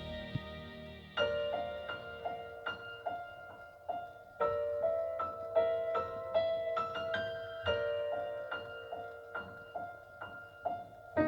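Recorded pop-ballad music: the last sustained notes of one song fade out, and about a second in a solo piano starts a slow, gentle intro of chords with single melody notes between them.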